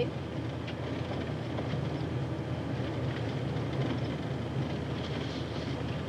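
Steady road and engine noise heard from inside a moving car's cabin: a low drone under an even hiss.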